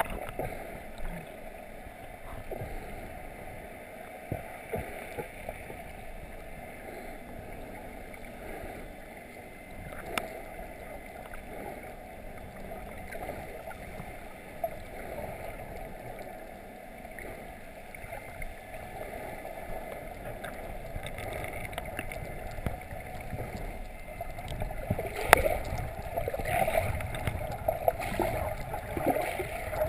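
Muffled water noise heard from a camera under the sea surface, with a few sharp knocks, about ten seconds in and again near the end. It grows louder and busier with sloshing and splashing over the last few seconds.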